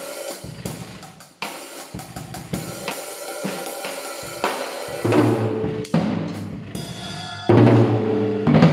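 Acoustic drum kit played with sticks, tried out after a new Remo drum head has been installed. Quick strokes with a cymbal wash come first, then from about five seconds in a few loud tom strokes that ring on with a clear low pitch.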